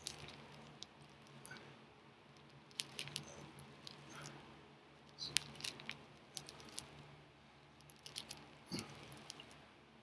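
Faint rustling and light scattered clicks and creaks from a bed and its covers as a person lying on it swings his legs up and down in leg lifts, over a low steady hum.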